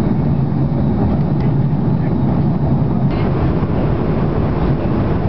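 Steady engine and airflow roar inside the passenger cabin of an Airbus A340-600, deep and even, with a slight brightening about halfway through.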